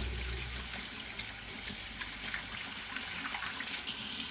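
Kitchen faucet running into a stainless steel sink, with hands being washed under the stream and water splashing off them into the basin.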